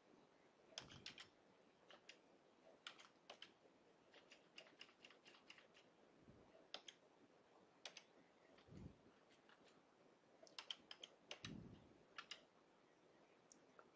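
Faint typing on a computer keyboard as numbers are keyed in: scattered runs of short key clicks, with a couple of soft low thumps in the second half.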